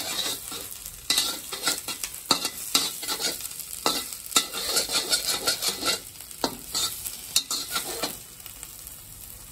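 Steel spatula scraping and clacking against a metal kadai in quick, irregular strokes as chopped onions and scrambled egg are stirred, with the sizzle of frying underneath. The stirring eases off near the end, leaving mostly the sizzle.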